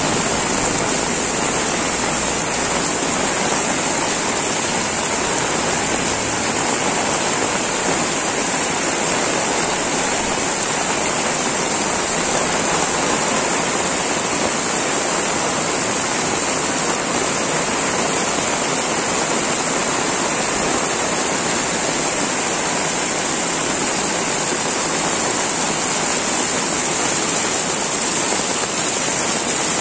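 Heavy rain falling steadily, a dense even hiss of drops splashing on wet paving, puddles and water spilling off roof edges.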